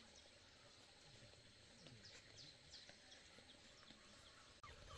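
Near silence: quiet rural background with a few faint, short, high bird chirps. Near the end the background gets abruptly louder.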